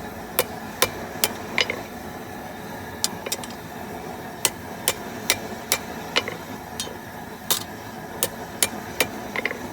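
Blacksmith's hammer striking hot steel rod on an anvil: a string of sharp, ringing blows, about two to three a second, with short pauses between runs.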